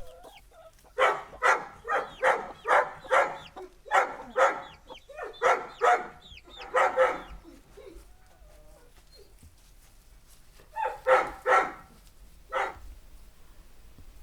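A dog barking: a run of about a dozen barks at roughly two a second, a pause, then three more barks near the end.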